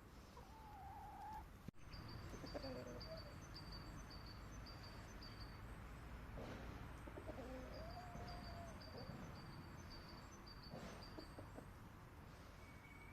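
Chickens making a few soft, low calls, faint against the background. Over them a high, thin chirp repeats about three times a second in two runs, one shortly after the start and one in the second half.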